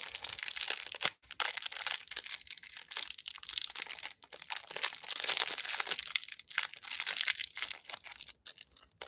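Clear plastic wrapper of a trading card pack crinkling and tearing as hands pull it open, a dense crackle with a few short pauses.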